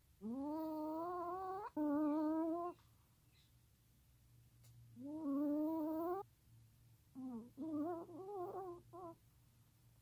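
A Chihuahua whining in its sleep. Two long, slightly rising whines come back to back in the first few seconds, another about five seconds in, then a few short, broken whimpers near the end.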